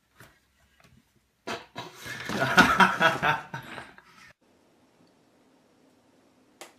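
A person laughing in a pulsing run for about three seconds, starting about a second and a half in.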